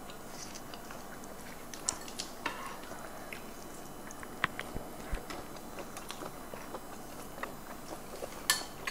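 Eating at a table: chewing, with scattered light clicks and clinks of a metal spoon against plates and bowls, the loudest clink near the end.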